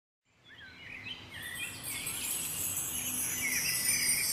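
Birds chirping in short, curving calls over a high, steady hiss, fading in during the first second.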